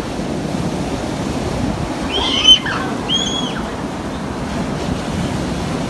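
Ocean surf breaking and washing up the sand, with wind on the microphone. About two seconds in, a couple of short high cries and a sharp loud knock cut through.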